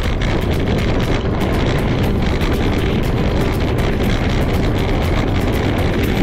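Wind buffeting the microphone of a camera riding along on a bicycle, a loud steady rushing rumble heaviest in the bass, from riding into strong headwinds.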